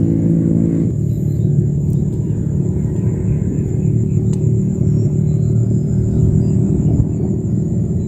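Loud, steady low rumble. In the first second it carries a steady humming tone, then turns into a rougher, noisier rumble. A faint, steady high whine runs above it.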